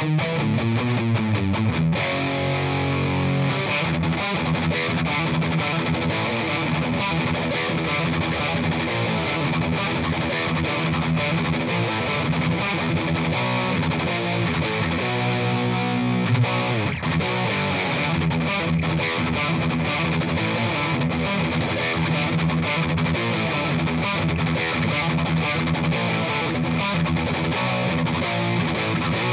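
Distorted electric guitar playing many quick notes, riffs and lead lines. The guitar is a Ruokangas Unicorn Custom single-cut fitted with a Bare Knuckle Nailbomb pickup.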